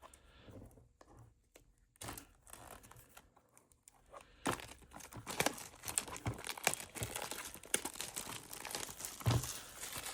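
Packaging of a new Rubik's-type speedcube being torn open and crinkled by hand: light handling at first, then a dense run of crackling and tearing from about two seconds in that gets louder and busier about halfway through and eases off near the end.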